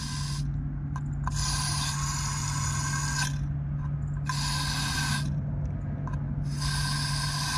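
Water hissing through the partly opened ball valve of a pool-plumbing pressure-test rig as the line fills and pressurises toward 15 PSI. The hiss, with a faint whistle in it, comes and goes in stretches of one to two seconds over a steady low hum.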